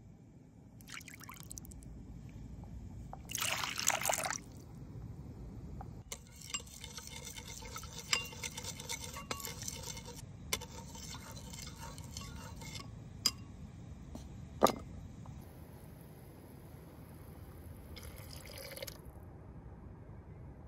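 Water is poured briefly into a ceramic bowl of crumbled dried qurut (dried yogurt) about four seconds in. A metal spoon then stirs the mix, scraping and clinking against the bowl, with a few sharp single clinks later on.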